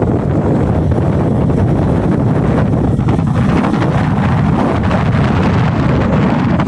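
Wind buffeting the microphone, a loud steady rumble with no breaks.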